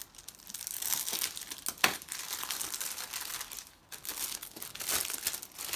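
Clear plastic kit bag crinkling as it is slit open with a hobby knife and a plastic sprue of tank track links is pulled out of it, with a sharp click about two seconds in.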